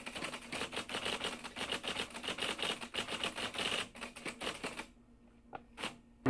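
Typewriter keys clacking in a rapid run of clicks as the text is typed out. The run stops about five seconds in, and two last single strikes follow.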